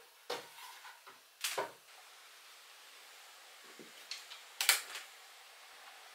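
Wooden knocks and bumps as a pine-board side panel is handled and set against the wooden frame of a kitchen unit, two fuller knocks in the first two seconds, then small taps and a sharp click about four and a half seconds in.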